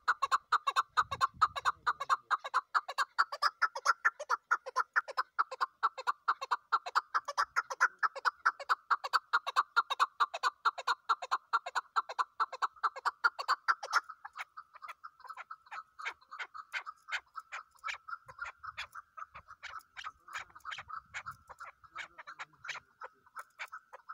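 Chukar partridge calling: a long, rapid run of repeated chuck notes. The notes are loud for roughly the first fourteen seconds, then continue more softly.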